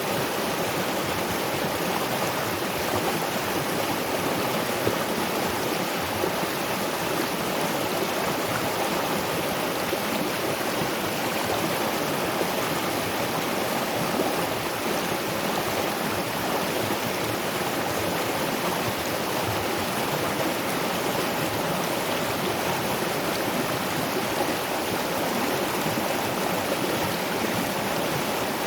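Waterfall and river water rushing in a steady, unbroken wash.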